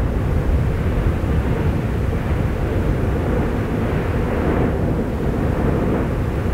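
Steady low rumble from the erupting volcano, even in level with no separate bangs or bursts.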